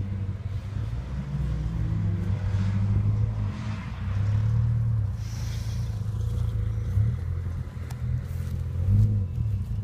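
Turbocharged Mitsubishi Airtrek engine at a distance, its note rising and falling as the car accelerates and lifts through the coned course, with low wind rumble on the microphone.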